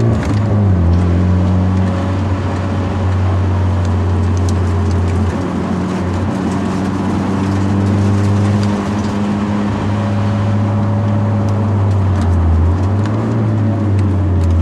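Hyundai Genesis Coupe 2.0's turbocharged four-cylinder engine running steadily as the car is driven along a winding road, with several brief dips in engine pitch, over a steady hiss of road noise.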